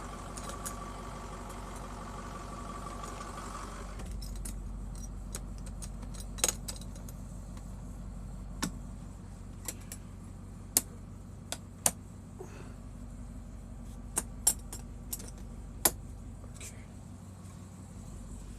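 Caterpillar 3208 turbocharged V8 diesel idling steadily, heard from inside the motorhome's cabin. A steady whine sits over it until about four seconds in, and sharp clicks and rattles come every second or two after that.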